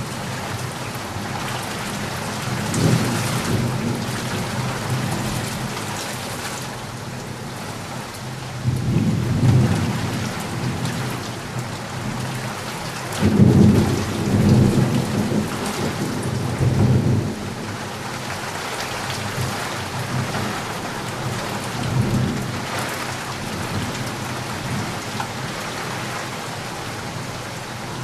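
Heavy rain falling steadily, with several low rolls of thunder rumbling under it, the longest and loudest about halfway through.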